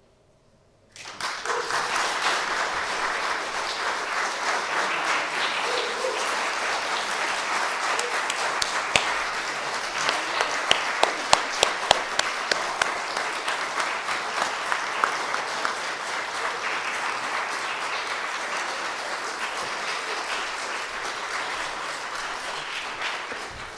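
Audience applauding after a handbell choir piece. The applause starts about a second in and holds steady, with a few louder single claps about halfway through.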